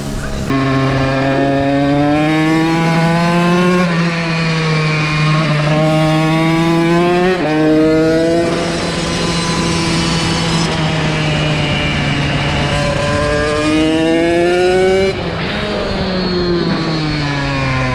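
Small dirt-bike engine accelerating hard, its pitch climbing through each gear and dropping at every upshift: twice in the first eight seconds, then it runs steadier before climbing and shifting again near the end.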